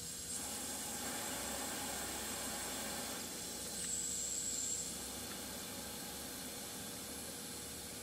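Air hissing out through the valve of a Cessna 150's nose gear, let out to lower the nose and bring the airplane level for weighing. The hiss is faint and steady, with a louder, higher spurt about four seconds in.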